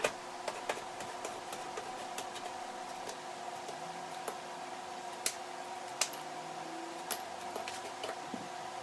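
Scattered sharp snaps and clicks of gypsum being broken off the edge of a round sheetrock patch, leaving the paper face to form a tape flange, with three louder snaps in the second half. A steady low hum runs underneath.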